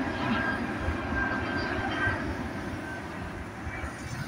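Boeing 777-200ER twin-engine jet airliner climbing out after takeoff: steady jet engine noise with a faint high whine, slowly fading as the aircraft flies away.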